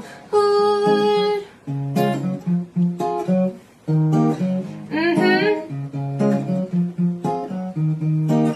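Acoustic guitar playing a run of plucked notes and strums, an instrumental passage just after the sung verses.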